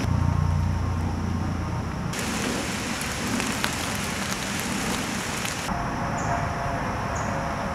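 Steady outdoor background noise: a hiss with a low rumble, strongest in the first second, that changes abruptly twice where the shots cut.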